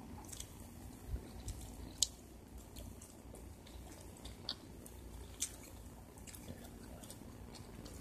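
Close-up eating sounds: chewing, with scattered light clicks of a spoon against a plate, the sharpest about two, four and a half and five and a half seconds in.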